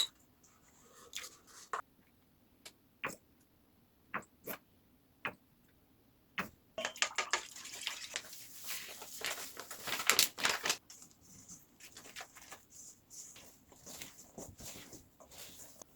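Handling food and tableware at a table: scattered light clicks and taps, with a denser stretch of crackling rustle in the middle.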